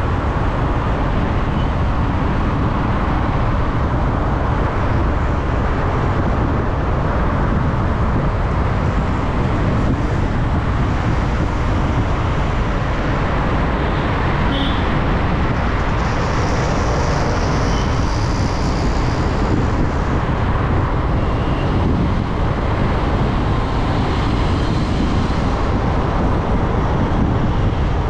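Steady road and engine noise of a car driving in city traffic, with a few faint, brief high tones now and then.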